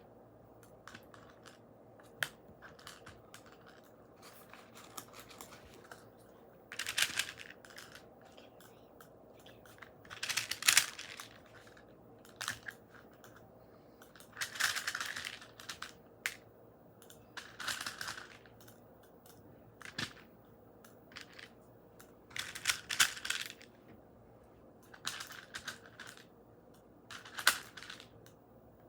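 Small plastic beads rattling and crunching as they are poured and worked into a balloon, in irregular bursts about a second long with scattered clicks between.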